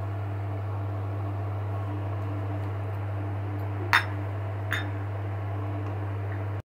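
Steady low electrical hum, with two sharp metallic clinks about four and nearly five seconds in, as a spoon of idli batter knocks against the aluminium idli plate.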